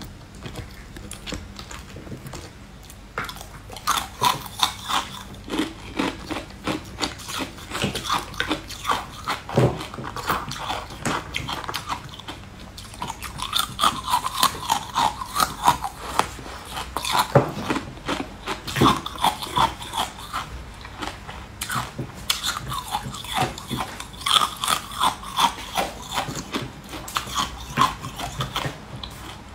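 Biting into and chewing crisp green stick-shaped treats, with many sharp crunches coming in quick runs and a few louder bites.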